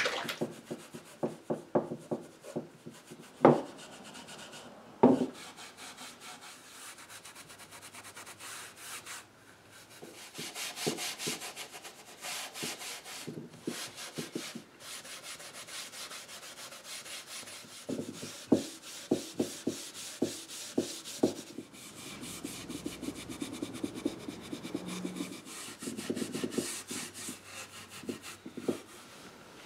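A pad of 0000 steel wool rubbing back and forth over the oak frame of a chair, working in a beeswax and orange oil polish, in runs of quick scratchy strokes. Two sharp knocks stand out a few seconds in.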